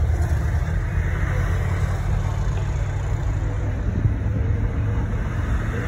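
Steady low rumble of road traffic and car noise, heard from inside a car with its window down.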